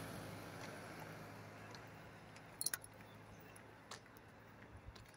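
The noise of a passing car on the road fades away, leaving quiet roadside ambience with a steady low hum and a few light clicks, a double one about midway.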